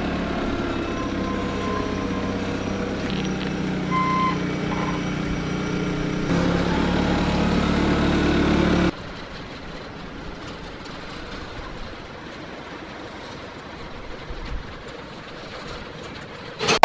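A vehicle engine running steadily, a little louder from about six seconds in. About nine seconds in it cuts off abruptly to quieter outdoor background noise, and a sharp click comes at the very end.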